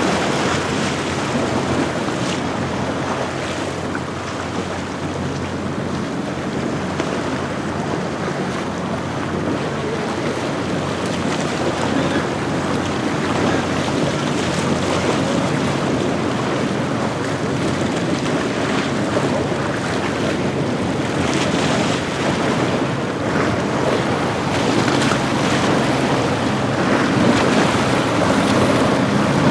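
Maori 46 yacht's engines running as it goes by, a steady low hum under water wash and wind buffeting the microphone, growing a little louder toward the end.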